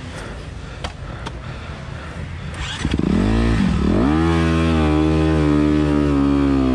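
Honda CRF250RX dirt bike's single-cylinder four-stroke engine on a trail: quiet at first, with a couple of sharp clicks about a second in, then about three seconds in it revs up hard, dips for a moment and pulls on at steady high revs.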